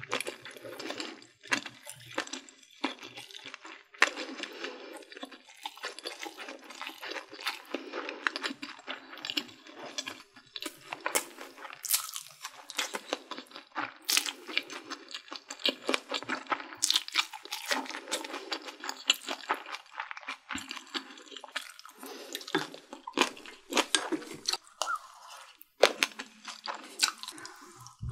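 A person chewing food, with wet smacking and crunching and many small mouth clicks.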